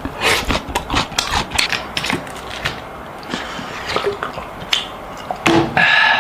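Quick irregular clicks and clatter of small objects being handled, with a short squeaky scrape near the end.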